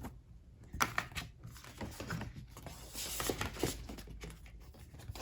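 Paper cards and cardstock being handled: scattered light taps and clicks with soft rustling of paper.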